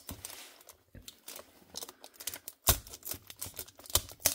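Hands opening a cardboard display box with a clear plastic window: irregular light clicks and taps of card and plastic, the loudest a little under three seconds in and again about four seconds in.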